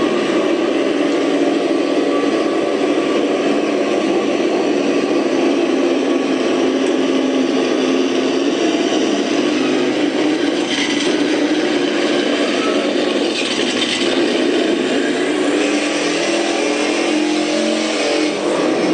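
ESS One engine sound simulator playing a Ford Mustang Cobra engine sound file through a speaker, running fairly steadily at a constant level.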